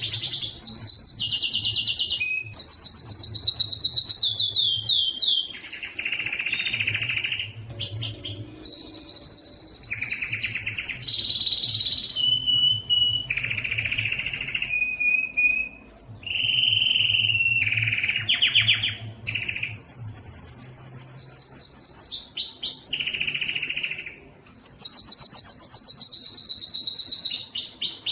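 Domestic canary singing a long, unbroken song of high, rapid trills and rolls, switching to a new repeated phrase every second or two.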